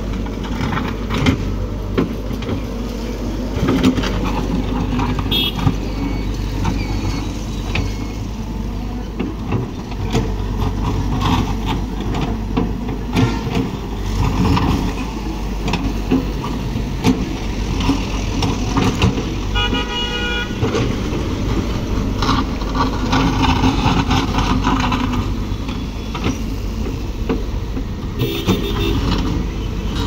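Caterpillar hydraulic excavator's diesel engine running steadily under load while it digs, with occasional knocks. A vehicle horn honks briefly about two thirds of the way in.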